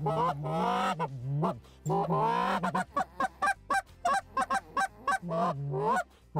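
Short-reed goose call blown in a fast goose cadence. Long honks, with a steady low tone under the higher breaking notes, alternate with a quick run of short clucks around the middle.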